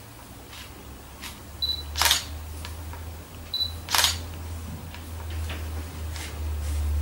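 A camera taking two photos about two seconds apart: each time a short high beep, then the sharp click of the shutter about half a second later. A low steady hum runs underneath.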